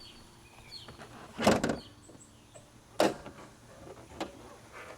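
Small car's hood being released and lifted: a loud clunk about a second and a half in, a sharp metal knock about three seconds in, and a lighter click after it. Faint bird chirps are in the background.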